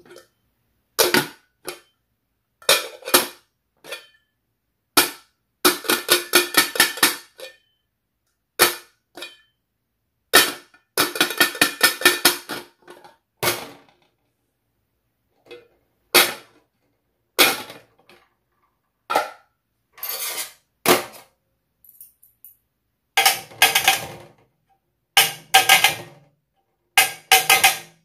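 Thin yellow aluminium ramen pot and its lid being clanked, tapped and rattled against each other and an aluminium tray table: a long series of sharp, tinny metallic clinks with a short ring, some coming in fast rattling runs, with metal chopsticks and a spoon against the pot near the end.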